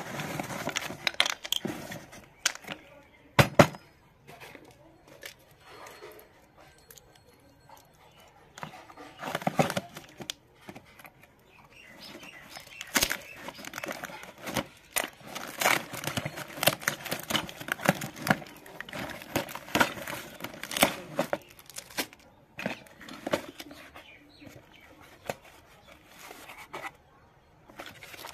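Cardboard parcel being opened by hand: packing tape ripped and cardboard rustling and scraping, with scattered knocks as small wooden pieces are set down on a concrete floor. The sharpest knock comes about three and a half seconds in.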